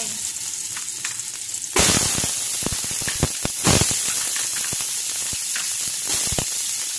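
Garlic frying in a little hot oil in a cooking pot: a steady sizzle full of crackling pops. It jumps suddenly louder a little under two seconds in and flares again about a second and a half later.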